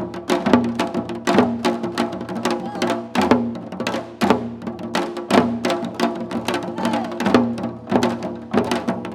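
Korean janggu hourglass drums played in a seoljanggu nongak performance: rapid, dense stick strikes with a stronger accented beat about once a second.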